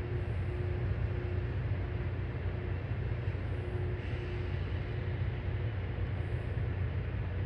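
Steady low engine rumble with a faint on-and-off hum above it.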